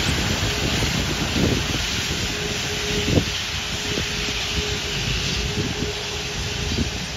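Airbus A380 taxiing past, its Rolls-Royce Trent 900 jet engines running at low taxi power: a steady rush with a faint hum that comes and goes. Wind buffets the microphone.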